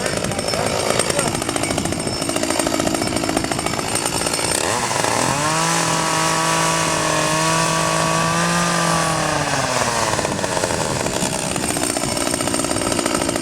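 Chainsaw running in wood carving. About five seconds in it revs up to a steady high pitch, holds it for about four seconds, then drops back to an uneven, rougher running.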